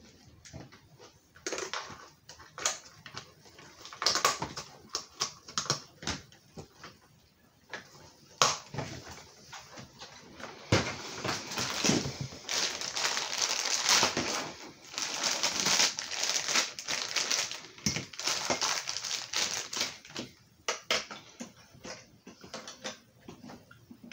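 Plastic toy parts being handled and snapped together, with scattered clicks and knocks. From about ten seconds in to about twenty there is a denser crinkling rustle, like plastic packaging being handled.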